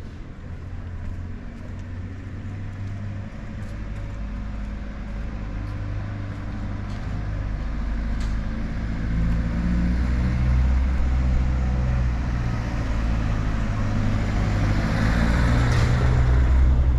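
A car's engine running at low speed, growing steadily louder as the car comes closer, with tyre hiss rising near the end as it draws near.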